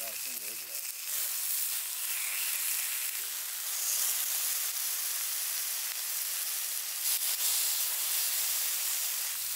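Chicken and lamb fat sizzling steadily on a hot stone slab.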